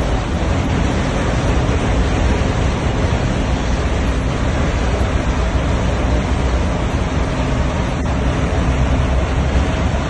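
Steady road noise inside a moving vehicle's cabin: a deep rumble of tyres and engine with a rushing hiss over it.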